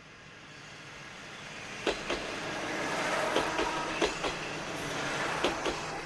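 A Kominato Railway diesel railcar passing, its running noise swelling and easing off, with three pairs of sharp clicks as the wheels cross rail joints.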